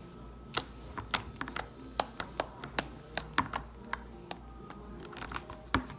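Slime being squeezed and poked: a run of sharp, irregular clicks and pops, about two or three a second, as air pockets in the slime burst.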